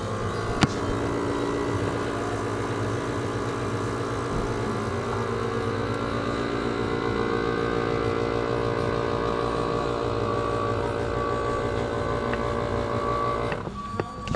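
A motor running steadily at an even pitch, cutting off near the end.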